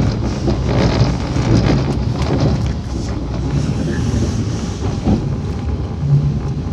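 Running noise of a JR East 115 series electric train heard from inside its driving cab: a steady rumble of wheels on rails, with a few short knocks over the track.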